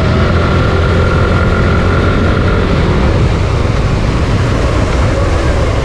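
Suzuki Gixxer 155's single-cylinder engine running steadily under way, with road and rushing-air noise.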